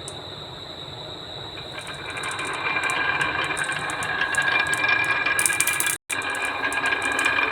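Toys rolling down a HABA wooden run, a steady rattling clatter of wheels or balls on wood with many small clicks, growing louder from about two seconds in. The sound breaks off for an instant about six seconds in.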